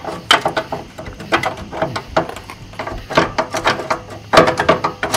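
Irregular metal clicks and clinks, some in quick little runs, from hand-working a bolt into the steel engine mount bracket.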